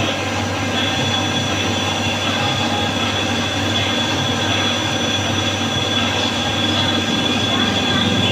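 Wintec TC15 CNC lathe running: a steady machining noise with a low hum under it. A thin, high-pitched whine sets in about a second in and holds steady.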